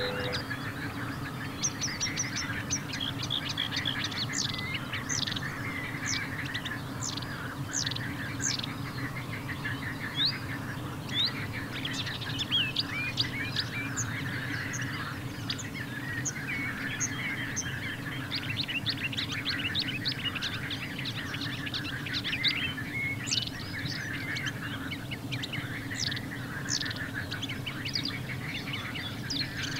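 Several songbirds chirping and twittering in a dense mixed chorus of short high notes, with no pause. A steady low rumble runs underneath.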